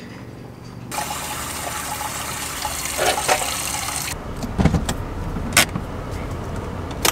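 Water running from an outdoor tap into a sink, with hands washing under it, for about three seconds before it cuts off. Then, inside the Toyota Land Cruiser 80 Series, a low steady rumble and a sharp knock or two.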